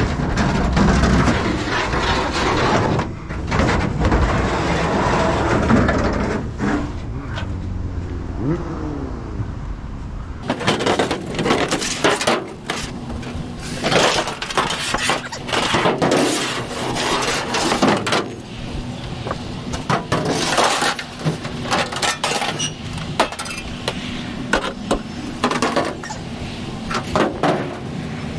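Scrap metal clanking, banging and clinking as pieces are pulled from a pile and tossed, in many irregular knocks. A low rumble sits under the first third.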